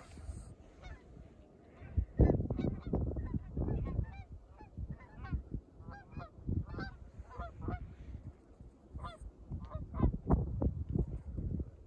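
Birds calling over and over, many short calls a few a second, starting about two seconds in, over low, irregular rumbling.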